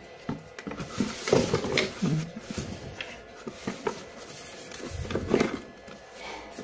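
Hard plastic feed-trough hangers and covers clattering and knocking against each other and the cardboard box as they are handled and lifted out, with cardboard rustling. The knocks and rustles are irregular and start a moment in.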